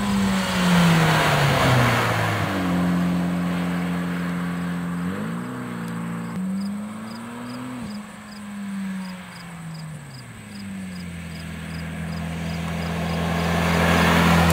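Mitsubishi Lancer Evolution X's turbocharged 2.0-litre four-cylinder heard through a Buschur Racing 3-inch stainless catback exhaust with the quiet muffler, in drive-bys. The exhaust note rises and falls several times as the car accelerates and goes past, then holds a steady note that grows louder as the car comes close near the end.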